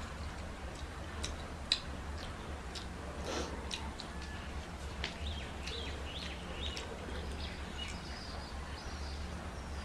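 Close-up eating sounds of rice and curry eaten by hand: scattered short, wet mouth clicks and smacks from chewing, one a little louder early on, over a steady low hum.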